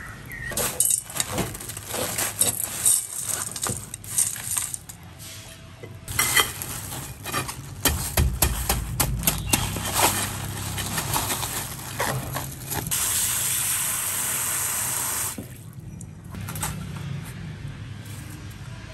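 Wet clicks and knocks as a large conch shell is handled and rinsed. Then crushed ice is poured from a plastic bag onto a plate, crackling and clattering for several seconds, followed by a steady hiss for about two seconds and a few light clicks as the shell is set down on the ice.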